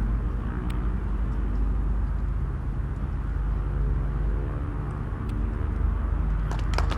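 Strong wind buffeting an outdoor microphone, a steady low rumble. A few sharp clicks come near the end.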